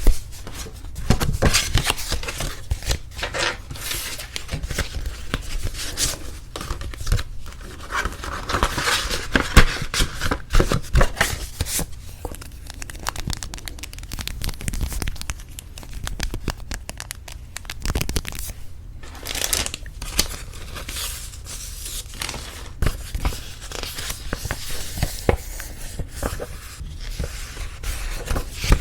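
Paper wedding invitation cards and envelopes being handled close up: irregular rustling, crinkling and light scraping of stiff paper, with sharper crackles now and then.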